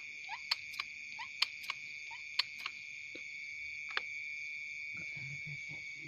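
Steady high-pitched drone of night insects such as crickets. Over it come a scattering of sharp clicks and a few short chirps in the first four seconds, the loudest click about a second and a half in.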